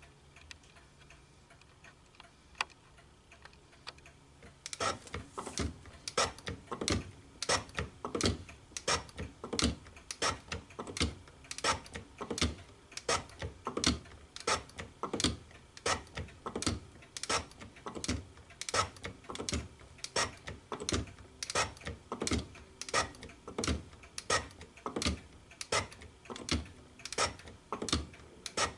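Hand shaper being worked, with regular sharp clicks starting about five seconds in, roughly two a second.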